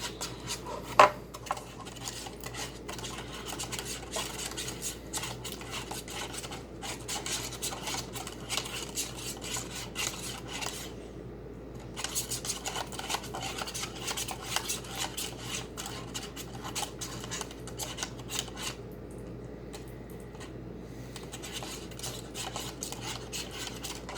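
Spoon stirring powder into water in a cup to dissolve it: quick repeated scraping and clinking against the cup, with one sharp clink about a second in and a couple of brief lulls.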